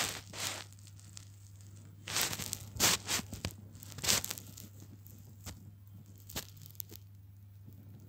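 A string of short rustles and scrapes, the loudest clustered between about two and four seconds in, over a steady low hum.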